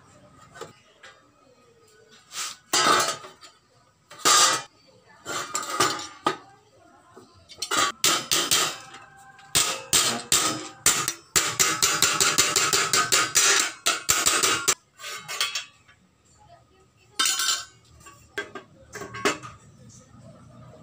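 Hammer blows on thin galvanized steel sheet, clanking as a bend is formed over a steel I-beam used as an anvil. Scattered single strikes, then a fast run of many strikes for about five seconds in the middle, and a few more near the end.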